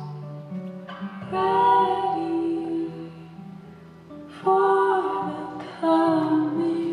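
Live acoustic folk song: a woman sings lead with a harmony voice over acoustic guitar, fiddle and upright bass. New sung phrases come in about a second in and again past the middle.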